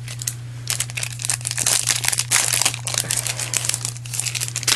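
Paper rustling and crinkling as it is handled and shuffled, with many irregular small crackles, over a steady low electrical hum.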